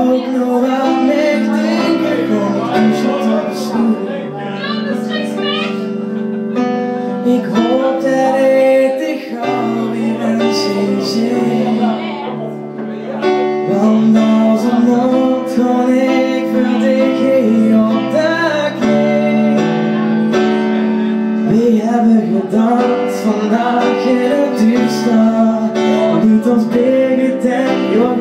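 Live music: a singer into a microphone over a Roland EXR-5s arranger keyboard playing sustained chords, with plucked guitar-like tones in the accompaniment.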